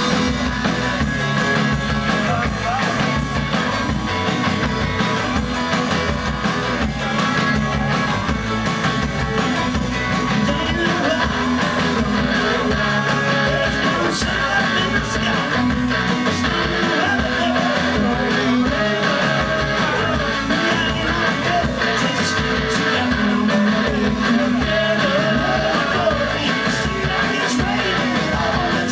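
A rock band playing live: strummed acoustic guitar, a second guitar and a drum kit, with a man singing into the microphone.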